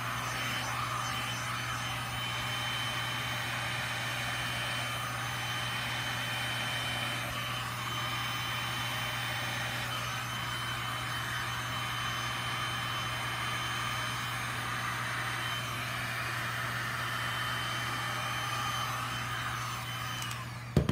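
Electric heat gun running steadily, blowing hot air over wet resin to warm it so it flows. It drops off and a sharp click follows near the end as it is switched off.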